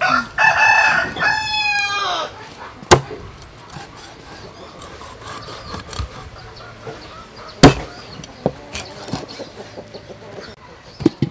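A rooster crows once in the first two seconds. Then a cleaver chops through a fish onto a wooden chopping block: sharp strikes about three and seven and a half seconds in, the second the loudest, with lighter knocks between them and near the end.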